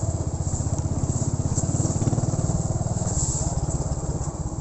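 Motorcycle engine running under way, a steady fast exhaust pulse.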